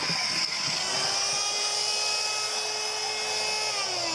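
Electric belt sanders running flat out with a steady, high motor whine and belt hiss; the pitch sags slightly near the end.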